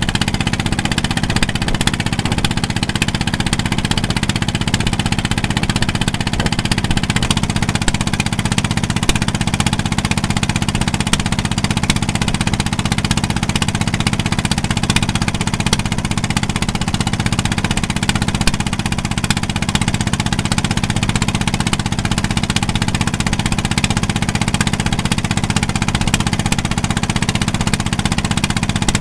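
Boat engine running steadily under way, an even mechanical drone over the rush of wind and water.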